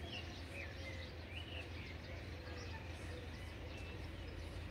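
Faint outdoor ambience: small birds chirping in short, curving calls over a steady low hum.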